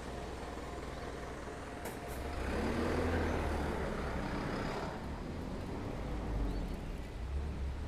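A motor vehicle passing on the road, its engine and tyre noise swelling about two and a half seconds in and fading again by about five seconds, over a steady low rumble.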